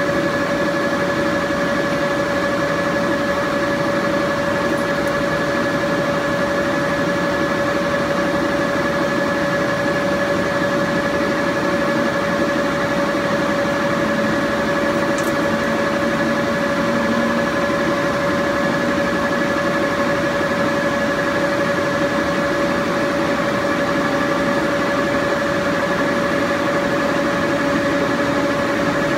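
Bullard vertical turret lathe running with its 76-inch table spinning under power: a steady mechanical hum with a whine held at two pitches.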